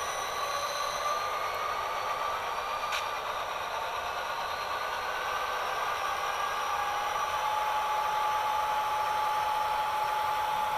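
Sound-equipped HO scale model of a Burlington Northern SD40 running along the track: the SoundTraxx Tsunami decoder's EMD 645 diesel prime mover sound through the model's small speaker, thin and without bass, with steady whining tones over it. There is a sharp click about 3 seconds in.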